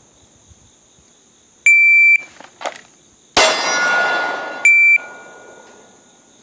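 Shot timer start beep, then about 1.7 seconds later a single shot from a Smith & Wesson M&P pistol drawn from concealment, ringing out and fading; a second, shorter timer beep follows just over a second after the shot. Crickets trill steadily throughout.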